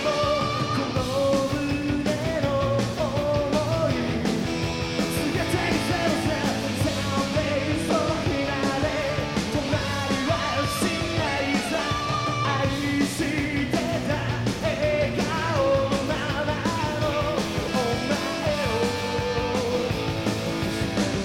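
A rock band playing live: lead vocals sung into a microphone over drums and guitar.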